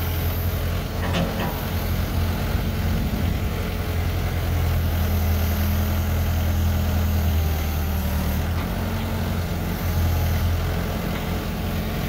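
Case 580E backhoe's diesel engine running steadily while the backhoe boom is worked, with a deep steady hum whose note shifts about eight seconds in.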